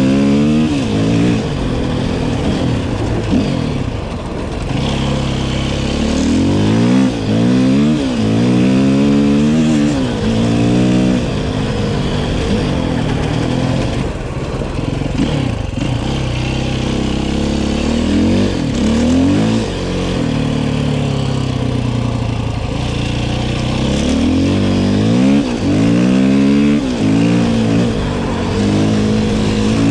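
KTM 450 EXC-F enduro bike's single-cylinder four-stroke engine revving hard again and again as the bike accelerates and then backs off. The pitch rises in repeated sweeps, with short falls between them.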